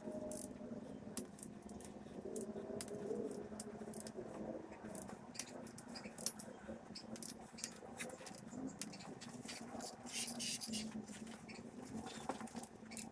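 Lexivon torque wrench ratcheting in short, irregular runs of sharp clicks as the connecting-rod cap bolts of a 5.3 LS V8 block are run down and torqued, on the first pass at 25 ft-lb.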